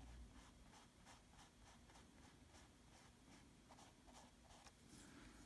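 Faint, soft scratching of a small paintbrush stroking paint onto textured canvas, in short strokes about two a second.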